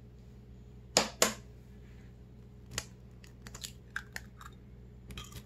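A hen's egg knocked twice to crack its shell, then faint scattered crackles and ticks as the shell is pulled apart over the bowl.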